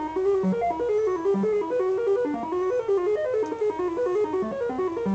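Realistic Moog MG-1 synthesizer tone whose pitch jumps up and down in irregular steps several times a second, the random LFO modulating the oscillator pitch.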